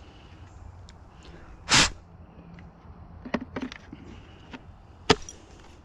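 Clicks and knocks from handling a Kobalt cordless electric chainsaw that will not start: the motor stays silent, held back by a part that needed pushing back. There is one short, loud hiss like a sharp breath about two seconds in, a few small clicks a little past halfway, and one sharp click near the end.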